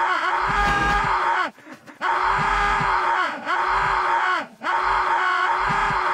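A cartoon man's voice groaning and moaning in pain, drawn out and repeated, with a hissing intake of breath over it. It breaks off for about half a second about 1.5 s in and again briefly near 4.5 s.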